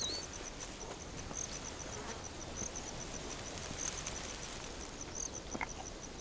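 Insect chirping in a steady run of short, high pulses over a soft background hiss, with a short bird call right at the start.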